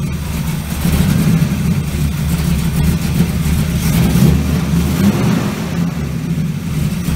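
1970 Chevelle's engine idling steadily, just after being started.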